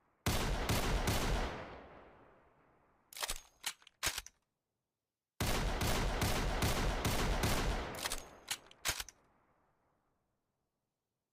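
EAA Windicator .38 revolver shots fired in a quick string, with a long echoing tail, followed by a few sharp mechanical clicks. The same pattern repeats about five seconds in.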